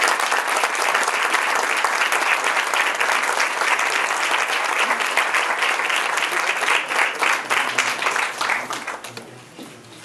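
Audience applauding steadily, the clapping thinning and dying away near the end.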